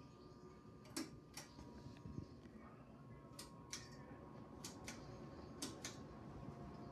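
Harbor Breeze Mainstays ceiling fan, heard faintly: a steady hum, with four pairs of sharp clicks spread through it.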